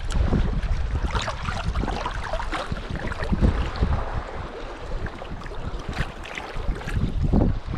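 Wind buffeting the microphone in a gusty low rumble over the rush of a river, with a few short splashes as a brown trout is handled in the water and let go.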